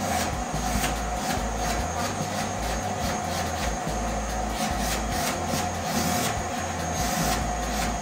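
Vacuum cleaner running with a steady drone and a constant whine, with short rushes of suction noise as the nozzle is worked over a person's jeans.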